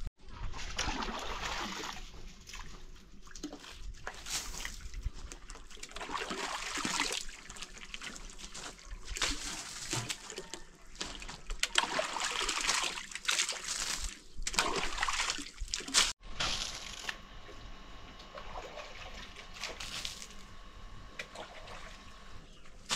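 Water sloshing, splashing and trickling in uneven bouts that swell and fade, with a sudden break about two-thirds of the way through.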